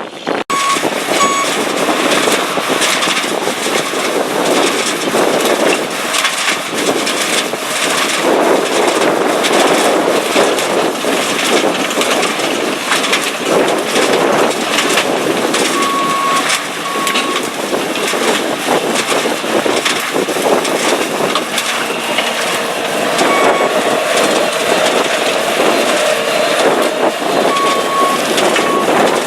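Revolver RT508 trommel screening plant running under load: steady machine noise with a dense clatter of soil and stones tumbling and dropping through the screen and onto conveyors. Pairs of short high beeps sound a few times.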